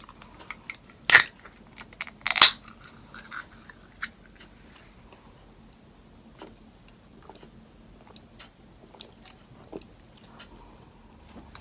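Aluminium can of bubly sparkling water opened by its ring-pull: two sharp cracks with fizz, a little over a second apart, the second slightly longer. Faint small clicks follow as it is sipped.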